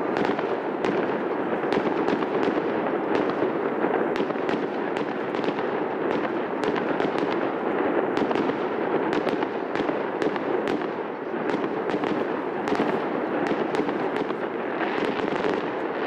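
Fireworks display going off: a steady din of bursts with many sharp crackling pops throughout, swelling into a brighter hiss near the end.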